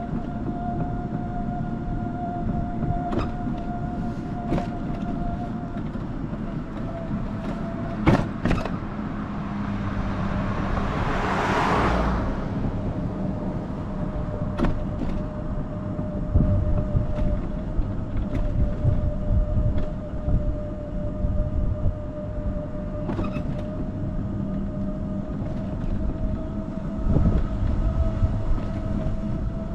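Car driving: steady road and engine noise with a faint steady whine, scattered knocks and rattles as it goes over bumps. A rushing noise swells and fades about eleven to twelve seconds in.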